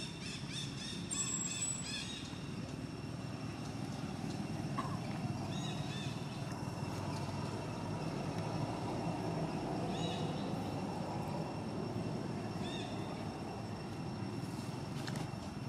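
Outdoor ambience: a steady low rumble, with short high chirping calls that come in a quick run in the first two seconds and then once every few seconds.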